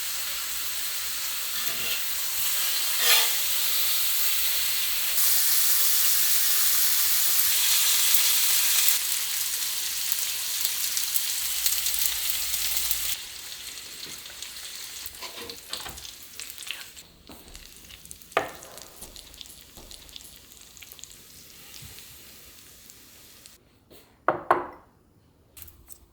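Food sizzling loudly as it fries in a Skeppshult cast-iron pan, with light clicks of stirring. About halfway through the sizzle drops suddenly and fades out, and a few sharp knocks come near the end.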